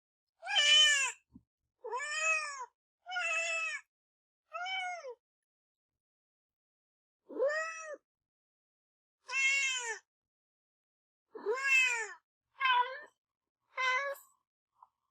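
Kitten meowing: about nine separate meows, each under a second and rising then falling in pitch, with short pauses between and a longer pause midway.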